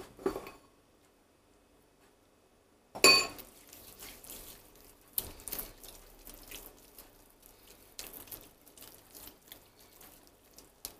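A spoon clinks once against a ceramic bowl about three seconds in, with a short ringing tone. Then come soft, irregular wet smacking and squelching noises of hands rubbing an oily spice marinade into a raw pork joint.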